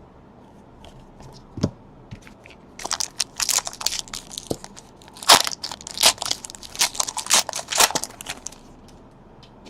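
Plastic packaging crinkling and crackling as trading cards are handled: a few isolated clicks, then a dense run of sharp crackles for about five seconds, stopping shortly before the end.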